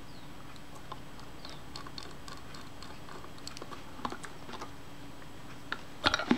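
Small, scattered metallic clicks and ticks of a small screwdriver working the tiny screws that hold the depth-of-field scale on the base of a Kodak Retina I camera, with a quick cluster of louder clicks near the end as parts are handled.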